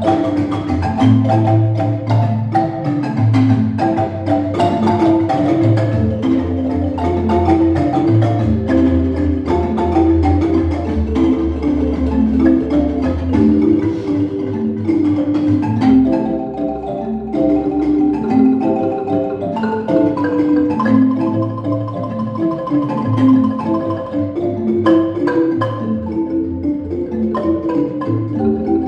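An ensemble of wooden marimbas played together with mallets: quick, repeated melody notes over a low bass line. The bass drops out for a few seconds past the middle, then comes back.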